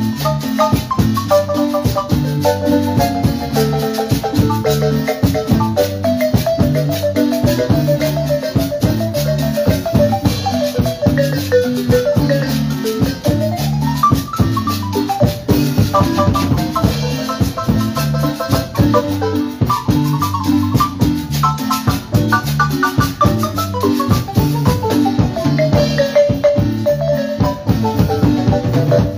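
Cumbia on a Chiapas-style marimba played by three players: quick runs of repeated mallet notes, with a fast run up and back down about halfway through. Electric bass, drum kit and a scraped metal güiro keep the dance beat underneath.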